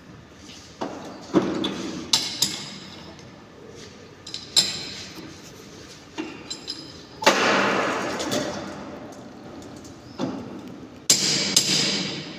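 Metal plumbing tools knocking and clanking against each other or a hard surface. About ten separate sharp knocks come at uneven intervals, each with a brief metallic ring.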